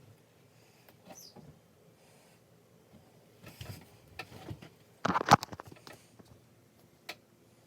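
Scattered rustling and light taps of close handling noise, with a louder burst of rustling about five seconds in and a sharp tick near the end.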